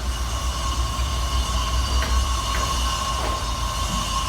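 Steady low rumble with a constant high-pitched whine over it, as from machinery running, and a few faint ticks.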